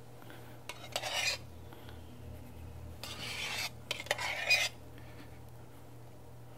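Stainless steel milk pitcher scraping and clinking as thick milk froth is worked out of it onto a glass mug. There are three short scraping bursts, about one, three and four seconds in, with a few light clicks.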